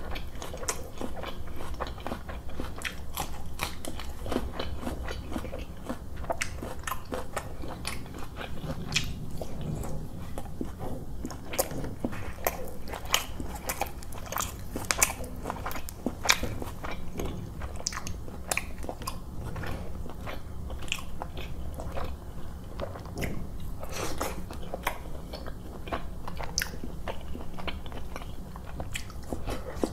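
Close-miked mouth sounds of a man eating roti and chicken curry by hand: continual chewing and biting with crisp crunches and many sharp clicks, over a steady low hum.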